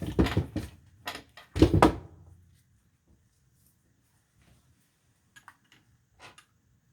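A few thumps and knocks from objects being handled on a workbench, the loudest about a second and a half in. Then near silence with a few faint clicks.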